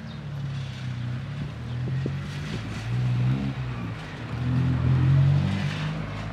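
Cars accelerating over a railway level crossing, passing one after another. The engines are loudest about three seconds in and again around five seconds in.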